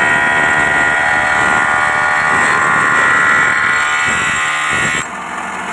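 Handheld angle grinder wet-cutting grooves into granite tile, a steady high whine over the grinding of the wheel on stone. It drops in level about five seconds in.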